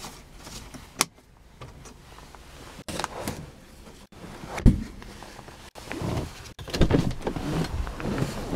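Interior trim of a Ford Mustang being handled: a sharp click about a second in, then a thump near the middle as the sun visor is worked. From about seven seconds in the power window's electric motor runs as the door glass moves.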